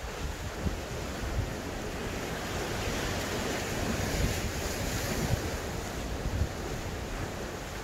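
Wind buffeting the microphone in irregular gusts over the steady rush of sea surf.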